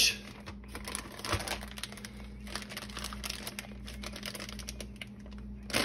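Plastic gallon zip-top bag crinkling and rustling in irregular bursts as hands handle it and press its zipper seal closed.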